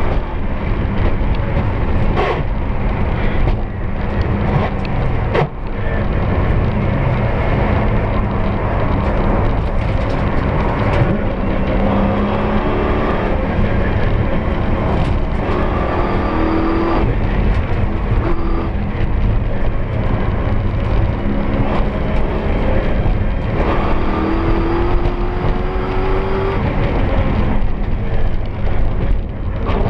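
The Toyota 1UZ-FE V8 of a four-wheel-drive Ford Sierra rally car, heard from inside the cabin, driven hard: it revs up and lifts off repeatedly through gear changes and corners. There are a couple of sharp knocks from the car in the first six seconds.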